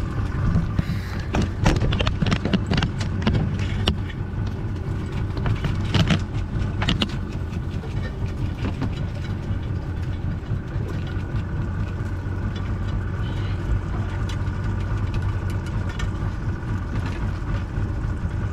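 Boat engine idling steadily, with scattered clicks and knocks in the first several seconds as a crab drop net is handled on the deck.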